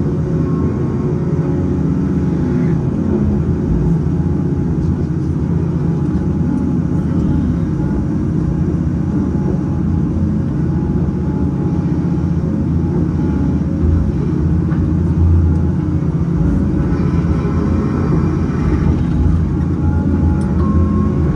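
Cat 568 log loader's diesel engine and hydraulics running steadily under load while its grapple swings fir pulp logs onto a log truck; the engine swells briefly about 14 seconds in.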